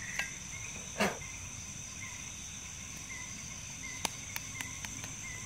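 Crickets chirring steadily in a high, even band, with a few sharp clicks and knocks over them. The loudest knock comes about a second in, and a quick run of smaller clicks follows near the end.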